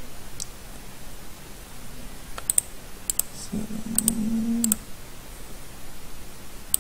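Computer mouse clicks, about five sharp ones starting about two seconds in, each a quick double tick. A low hum lasts about a second in the middle.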